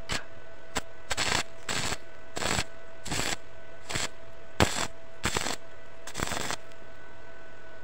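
Stick arc welding on a steel motorcycle sprocket: the electrode strikes and crackles in short bursts, each a fraction of a second, about eight times and less than a second apart, as tack welds are laid, over a steady hum. The bursts stop about two-thirds of the way through.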